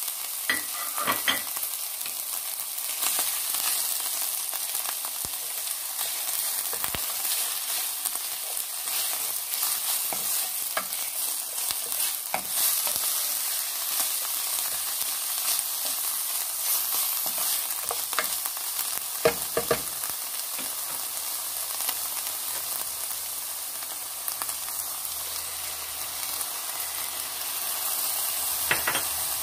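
Shredded chicken, onion, garlic and green chillies sizzling in hot oil in a pot while being stirred with a wooden spatula: a steady frying hiss with scraping and occasional sharper clicks, the strongest about a second in, about two-thirds of the way through and near the end.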